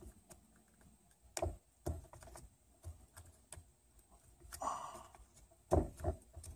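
Scattered light clicks and taps of a wire dust-boot retention ring and a plastic pry tool against a brake caliper as the ring is worked into its groove around the piston boot, with a short soft rustle a little past the middle.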